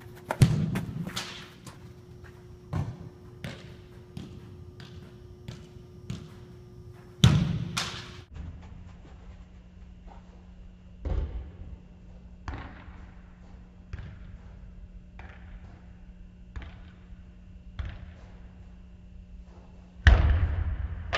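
Soccer ball being kicked hard on indoor artificial turf: four loud thuds with a trailing echo, near the start, about seven seconds in, about eleven seconds in and near the end. Between them come lighter taps of the ball being touched and bouncing.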